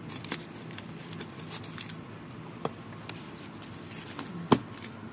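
A few light clicks and taps of things being handled over a shop counter, a customer going through a handbag with a zipper pull and keyring, the sharpest click about four and a half seconds in, over a low steady hum.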